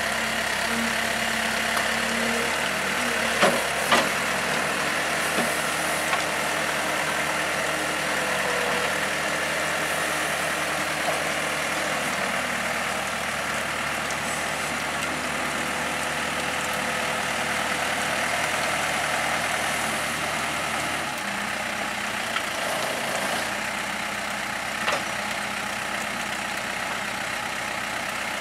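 Truck engine idling steadily, with a few sharp knocks; the deepest part of the engine sound shifts about three quarters of the way through.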